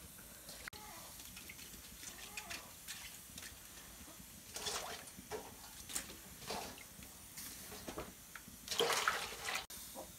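Water splashing and peeled bamboo shoots knocking against a steel bowl and a metal cooking pot, in short irregular spells, loudest about nine seconds in.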